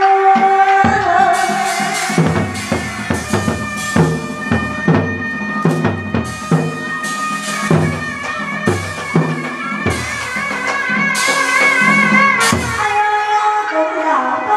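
Hát bội opera ensemble playing: a shrill double-reed kèn carries a wavering melody over frequent drum strikes and cymbal clashes that come in about a second in.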